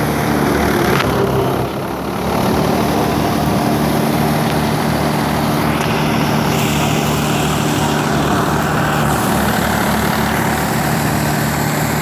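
Tractor engine running steadily as it drives a threshing machine being fed sheaves of crop, with a continuous rushing noise from the thresher; the level dips briefly about two seconds in.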